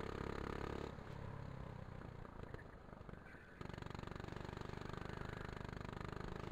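Go-kart engine running at speed, heard from a camera mounted on the kart. About a second in it drops away, as when the driver lifts off the throttle, then picks up again abruptly a little past halfway and runs steady.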